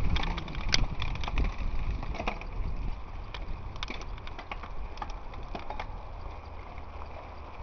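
Mountain bike riding over a dirt trail: a low rumble of tyre and wind noise with scattered clicks and rattles from the bike and loose ground. It is louder in the first two seconds, then steadier.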